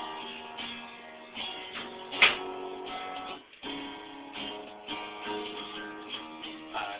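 Guitar strummed in a series of chords that change every second or so, with a brief break about halfway through. A sharp knock a little over two seconds in is the loudest moment.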